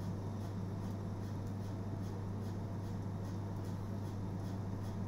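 Steady low hum with an even hiss behind it: background room tone with no distinct event.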